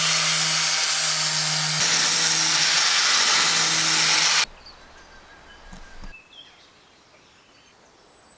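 Angle grinder running at steady speed, grinding the cut edge of a window opening in the van's sheet-metal side, then stopping abruptly about four and a half seconds in. Quiet outdoor background follows, with a few faint bird chirps.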